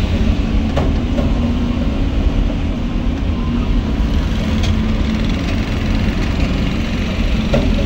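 Engine of a moving vehicle running steadily, with heavy low wind rumble on the microphone as it drives along the road.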